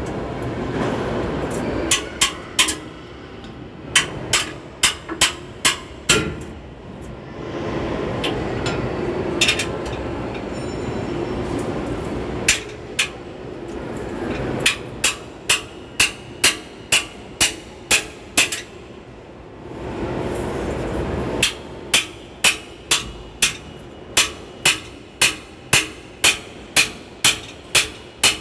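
Hammer blows on metal under a vehicle during gearbox removal: runs of sharp, ringing strikes about two a second, with short pauses between runs. Between the runs there are stretches of low rumbling noise.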